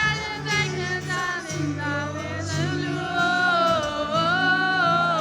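Live acoustic performance: a singer holding long notes with vibrato over acoustic guitar.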